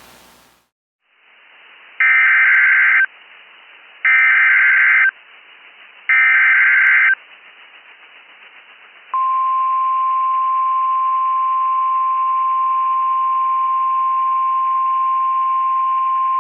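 Emergency alert data header: three loud bursts of screeching two-pitch digital data tones, each about a second long and about two seconds apart, followed about nine seconds in by NOAA Weather Radio's single-pitch 1050 Hz warning alarm tone, which holds steady. Together they announce the next National Weather Service alert.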